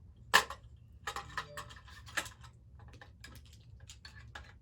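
Irregular clicks and knocks of BRIO toy railway and roller coaster pieces being handled and fitted together, with one sharper knock about half a second in.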